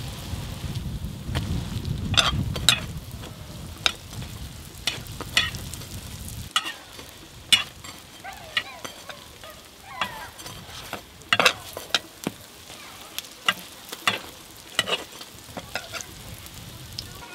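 Hotteok frying in oil on a flat-top griddle, sizzling steadily, with many sharp clinks and knocks of a stainless steel hotteok press and bowl against the griddle. A low rumble under the sizzle stops about six seconds in.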